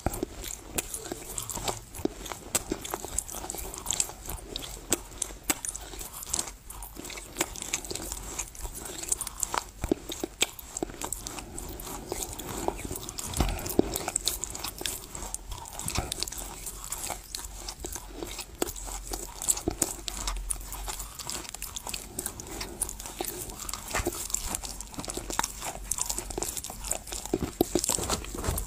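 Close-miked chewing of dry Chinese loess clay: a dense, continuous run of small crisp crunches as the lumps break between the teeth.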